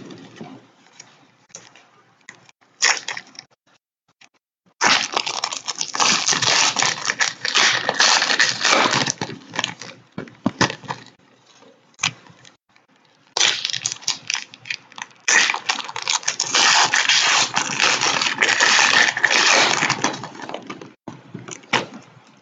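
Foil trading-card pack wrappers crinkling and tearing as the packs are opened by hand, in two long crackling stretches with scattered clicks and taps between.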